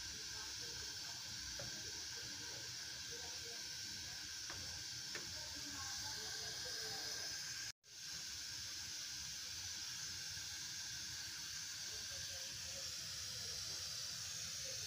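Steady hiss from the stove and a large pot of milk heating just short of the boil, with a split-second dropout about eight seconds in.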